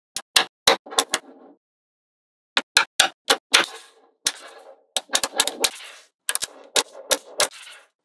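Small metal magnetic balls clicking and snapping together as rows of them are joined into a flat sheet: a quick run of sharp clicks, a pause of about a second, then many more clicks in quick succession.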